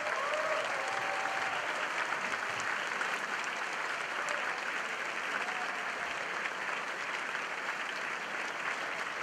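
A large audience applauding steadily, with a few whoops or cheers near the start.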